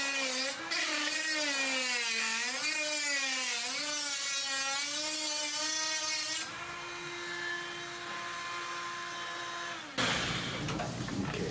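Dremel rotary tool cutting, its motor whine wavering up and down in pitch as the bit bites and eases. About six seconds in it drops to a quieter steady whine, spinning free off the work, then stops near the end with a burst of handling clatter.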